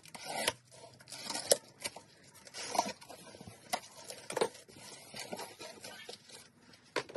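Cardboard shipping box being opened and unpacked by hand: flaps pushed back and contents handled, a string of irregular knocks, scrapes and rustles about a second apart.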